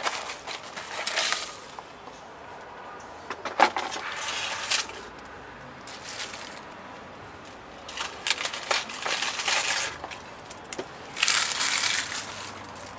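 Dry leaves crunching and crackling as a gloved hand crushes and packs them down, in several bursts a few seconds apart.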